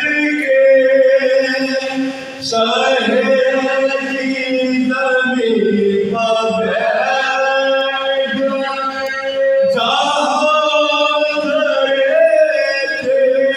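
Soz khwani, a Muharram lament: several men's voices chanting together in long, drawn-out held notes, one voice leading with the others holding a steady low note underneath.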